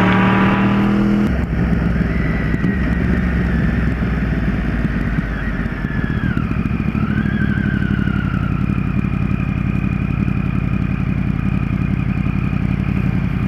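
Motorcycle engine running on the move: a strong high engine note cuts off about a second in as the throttle is closed. A lower, steady engine drone follows, with a whining tone that dips and falls as the bike slows.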